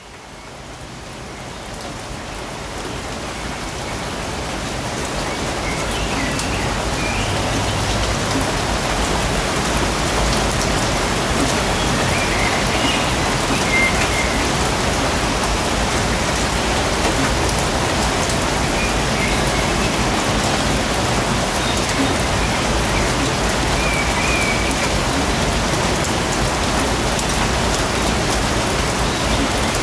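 Steady rain falling in a forest, fading in over the first several seconds and then holding level. A few faint bird chirps sound now and then over the rain.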